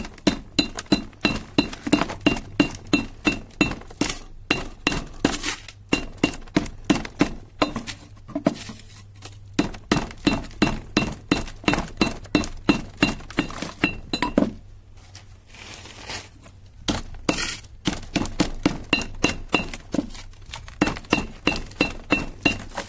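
Pestle pounding burned phone circuit boards in a mortar, crushing the brittle boards. The strikes come about twice a second, each with a short metallic ring, with a pause of a few seconds past the middle.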